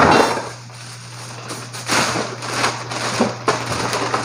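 A large clear plastic bag full of discarded bottles and containers crinkles loudly as it is handled, then goes quieter. A few light knocks and rattles follow as items shift inside it, over a steady low hum.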